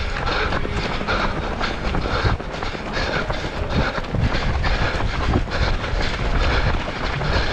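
Running footsteps in a steady rhythm, about three strides a second, with wind rumbling on a moving microphone.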